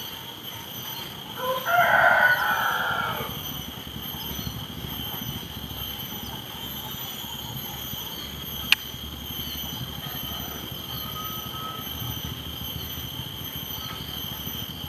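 A rooster crowing once, about one and a half seconds in, over a steady high-pitched drone. A single sharp click comes near the middle.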